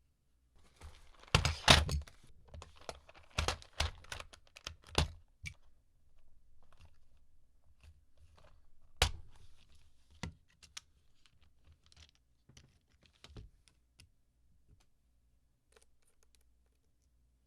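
Custom keyboard parts handled and set down on a desk: irregular clicks, knocks and light rustling, busiest in the first few seconds, with one sharp knock about nine seconds in and sparse faint ticks after.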